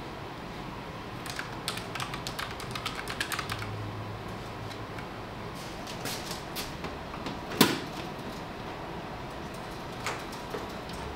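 Typing on a compact computer keyboard: a quick run of key clicks for a few seconds, then scattered single clicks and one sharper knock about halfway through.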